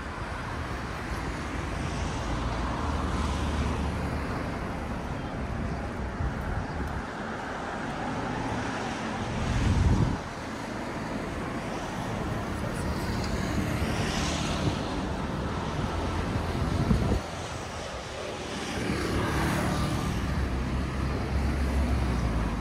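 Street traffic: cars passing along the road one after another, each swelling and fading over a steady background hum, the loudest pass about ten seconds in and another near seventeen seconds.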